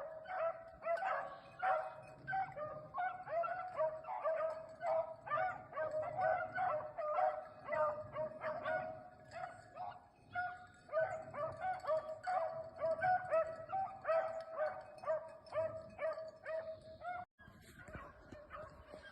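A pack of beagles baying while running a rabbit: many overlapping bawls and chops, several a second, becoming fainter for the last couple of seconds.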